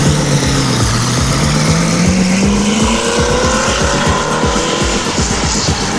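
SSC Ultimate Aero's twin-turbo V8 accelerating hard as the car pulls away, its engine note rising in pitch over the first three seconds and carrying on as it drives off.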